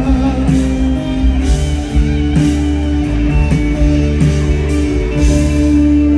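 Live band playing an instrumental passage without vocals: guitar, drums and keyboard, with drum strikes and a long held note through the second half.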